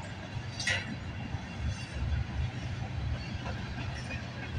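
Freight train of tank cars and covered hoppers rolling steadily over a railway bridge: a low, uneven rumble of wheels on rails, with one brief sharper sound under a second in.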